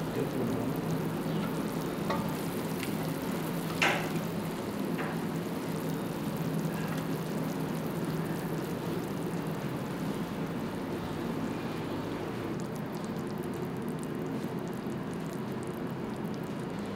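Syrup sizzling and bubbling as it is ladled over the hot baked baklava in a round metal pan, a steady hiss with a few light clicks, the sharpest about four seconds in.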